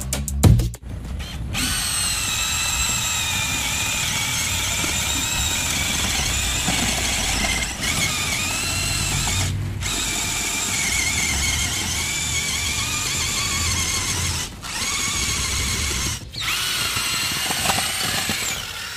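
Cazar CZ-21VD 21 V brushless cordless drill turning an earth auger into soil, its motor whining steadily under load with a wavering pitch over a low rumble. The run starts about a second and a half in and stops briefly a few times.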